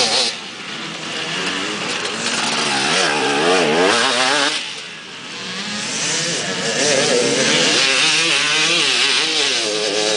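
Dirt bike engine revving up and down over and over as the rider works the throttle on a dirt course, the pitch rising and falling with each change. It drops away briefly about halfway through, then comes back loud.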